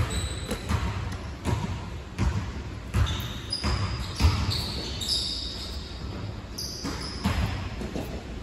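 Basketball bouncing on a gym court floor, a run of thuds under a second apart, with sneaker squeaks on the court in the middle of the run.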